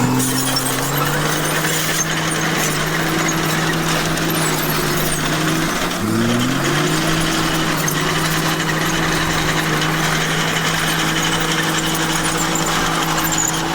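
Komatsu bulldozer's diesel engine running steadily under load, with a constant hum over a broad clatter. About six seconds in the engine speed dips and quickly climbs back up.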